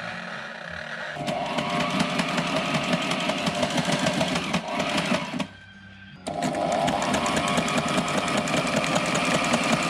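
Sailrite sewing machine running at speed, stitching sunshade mesh fabric with a fast, even rhythm. It stops about five seconds in and starts again under a second later.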